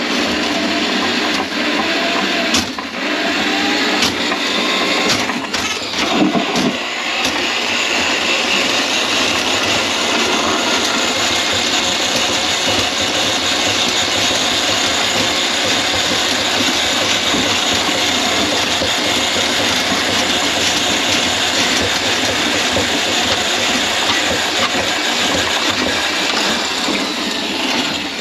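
Electric drain-cleaning machine running steadily with its spinning snake cable fed into a kitchen sink drain to clear a grease clog. Uneven knocks and rattles sound over the first several seconds.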